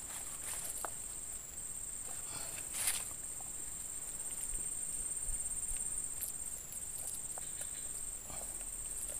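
Steady high-pitched insect chorus, with faint rustling and handling noises and one slightly louder rustle about three seconds in.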